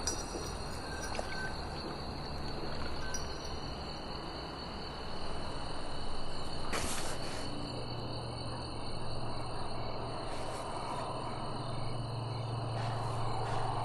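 Summer meadow ambience: insects chirring in a steady high drone, with a single click about seven seconds in and a low rumble coming up in the second half.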